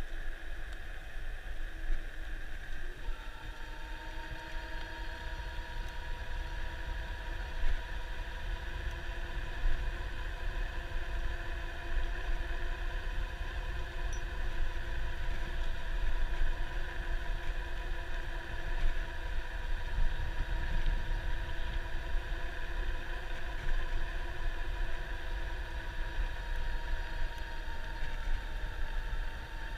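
Rad Runner Plus electric bike under way: its rear hub motor gives a steady whine of several held tones, which set in firmly about three seconds in, over a low rumble of wind and road.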